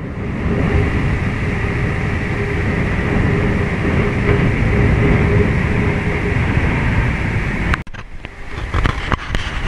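Wind rushing over the microphone of a handheld action camera as a cyclist rides along an asphalt road, with a faint steady hum under it. About eight seconds in the rush drops away, leaving a lighter rustle and a few clicks.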